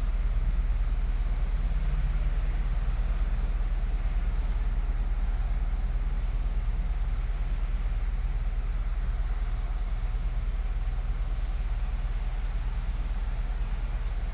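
Chapel temple chimes ringing lightly, with high tones coming and going, over a steady low rumble.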